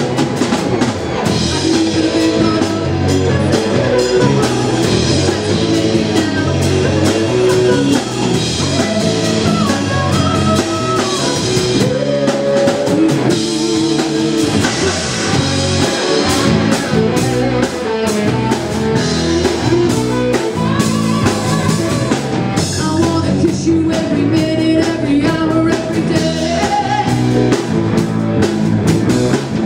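Rock band playing live: electric guitar, bass and drum kit in a steady rock groove, with a melodic line and singing over it.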